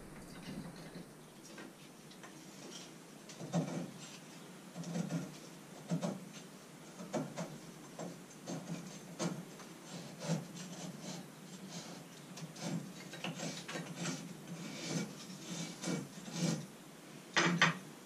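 Dry kindling sticks knocking and scraping against each other as they are stacked by hand into a small wood-burning stove to lay a fire, in a string of irregular light clatters, the loudest near the end.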